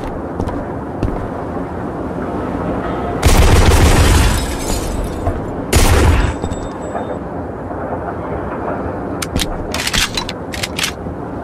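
Shooter video game gunfire and explosion effects: a steady rumbling bed with two heavy booms a few seconds in, the second shorter, then a few sharp gunshots near the end.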